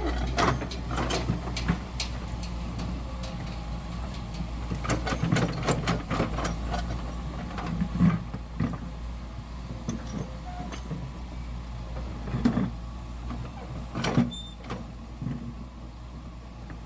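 Heavy construction machinery running with a steady low engine hum, broken by repeated sharp clanks and knocks of metal and pipe being handled, the loudest about 8, 12.5 and 14 seconds in.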